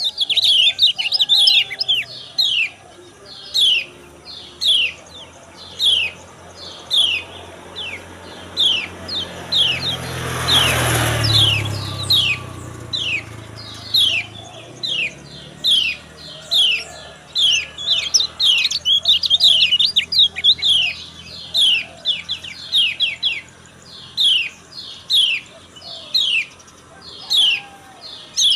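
Kecial kuning white-eye giving a long run of short, sharp 'ciak' chirps, each sliding downward, about two or three a second with hardly a break. A brief rush of noise with a low hum rises and fades around the middle.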